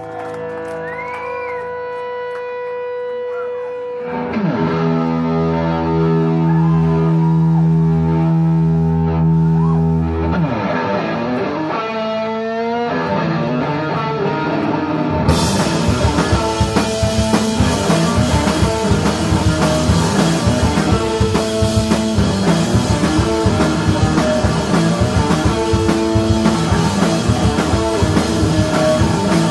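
Live stoner-rock band playing the opening of a song. Held electric guitar tones give way about four seconds in to a heavy, sustained low chord, and about halfway through the drums come in with the full band playing a driving riff.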